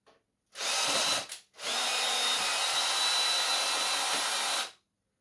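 Power drill run briefly, then held for about three seconds with a steady whine, to open up a floppy disk drive.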